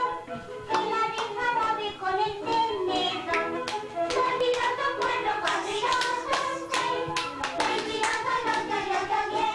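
A group of people singing together while clapping along in a steady rhythm, two or three claps a second.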